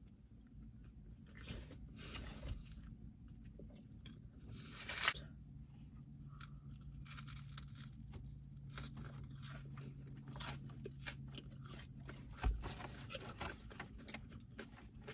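Close-up eating sounds: food being chewed and crunched, with many small clicks and crackles and a louder burst about five seconds in.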